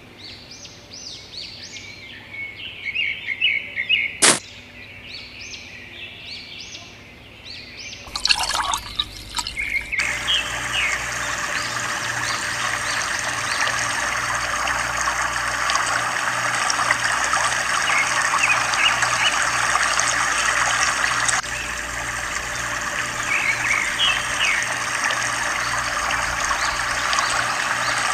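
Birds chirping. From about eight seconds in, water starts pouring from a thin pipe into a small plastic pool, a steady splashing trickle, with the birds chirping over it.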